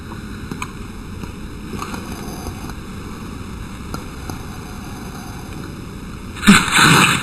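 A dog sneezing once, loud and short, near the end, over a steady rushing background noise like wind on the microphone.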